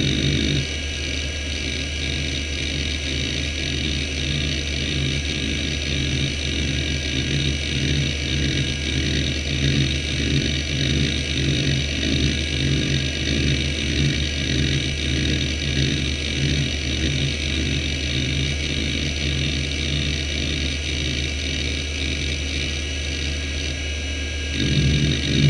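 Conner CP3360 360MB four-platter hard drive running under a seek test: the spindle whirs steadily while the heads seek back and forth in a rhythmic stream of seek noises. The seeking gets louder near the end.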